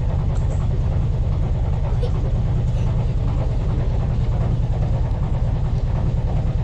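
Canal trip boat's engine running steadily at slow cruising speed, a loud, even low throb.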